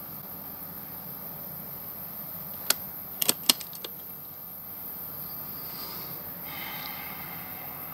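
Steady background hiss broken about three seconds in by a handful of sharp metallic clicks, one and then a quick cluster of three, from handling a Hatsan AT44-10 PCP air rifle.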